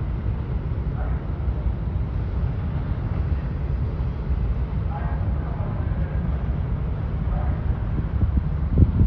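Low, steady rumble of wind on the microphone, with faint distant voices, and a louder gust or thump near the end.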